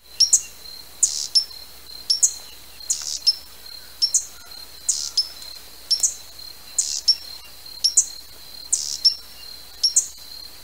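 Hummingbird calling: short, sharp, high chips, mostly in pairs about once a second.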